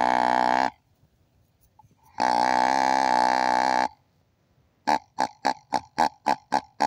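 Hand-blown deer call: one long note ending just after the start, a second lasting almost two seconds, then a fast run of short notes, about four a second.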